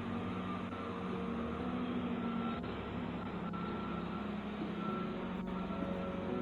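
A delivery truck's engine running with its reversing alarm beeping again and again, a few faint clicks among the beeps.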